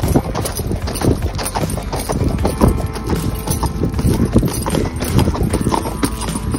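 Hoofbeats of a ridden horse on a dirt path, several strikes a second in an uneven, steady run.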